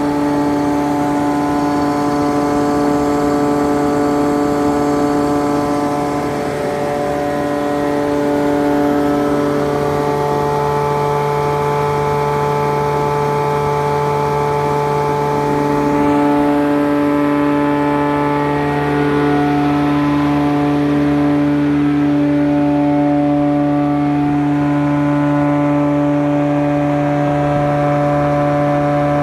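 Wadkin planer/thicknesser running steadily: its electric motor and cutter block give a constant hum with a whine above it that holds the same pitch throughout.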